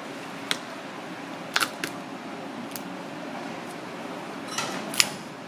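Kitchen scissors snipping through cooked king crab shell: about six sharp, separate clicks and crunches, the loudest a little before the end, over a steady background hum.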